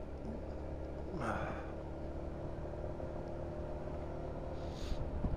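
Honda Forza 350 scooter's single-cylinder engine running steadily at road speed, heard from the rider's helmet over a steady low rumble of wind. Two short breathy sounds come through, about a second in and near the end.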